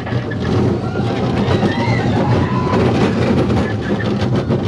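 Roller coaster train rolling along its steel track, heard on board: a steady wheel rumble with rapid clattering.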